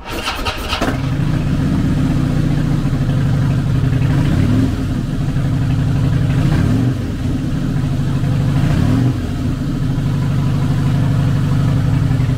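2007 Harley-Davidson Night Train's 96 cubic inch V-twin, fitted with a Vance & Hines Big Radius exhaust, starting with a loud burst right at the beginning and settling into a steady idle. The throttle is blipped in three short revs a couple of seconds apart in the middle.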